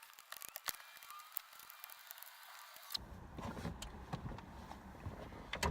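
Scattered small clicks and rattles of parts and tools being handled during reassembly work, with a louder knock near the end.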